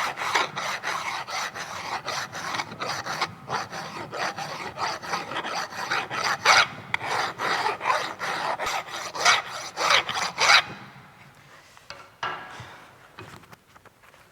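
Hand file rasping back and forth across the edge of a metal workpiece clamped in a vise, bevelling it for a V-groove weld. The strokes run steadily, then stop about ten seconds in, leaving only a few faint scrapes.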